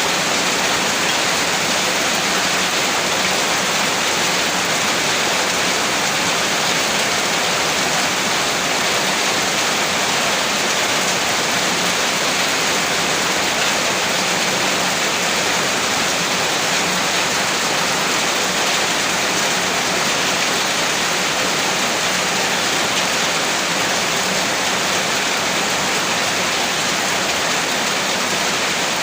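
Heavy rain falling steadily, an even dense hiss with no single drops standing out.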